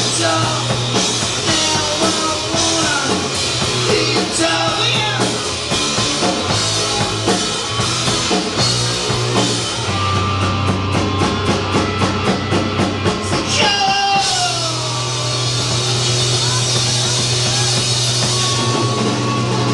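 Live punk-rock band playing loudly: singing, electric guitar, bass and a drum kit. About halfway through the drums switch to a fast, even run of strokes, about six a second, which ends in a falling glide in pitch before the band plays on.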